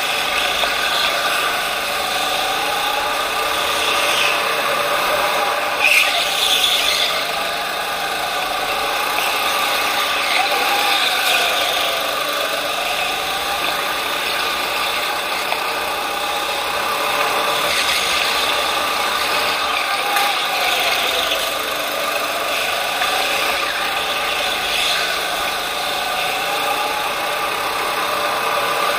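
Racing go-kart heard from on board while lapping, its motor pitch rising and falling as it speeds up down the straights and slows into the corners.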